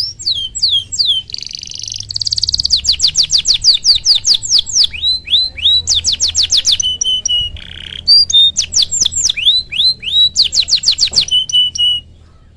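Domestic canary singing a long, loud song: fast runs of repeated chirps that sweep down in pitch, broken by a few short buzzy rolls. It stops shortly before the end.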